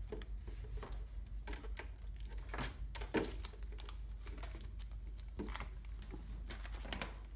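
Scattered light clicks and rustles of wires and plastic connectors of a car-stereo wiring harness being handled, at irregular intervals over a steady low hum.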